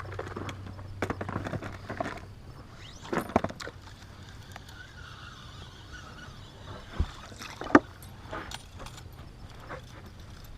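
Knocks and clicks of gear being handled in a small fishing boat, over a low hum that fades out about two and a half seconds in; two sharp knocks stand out near the end.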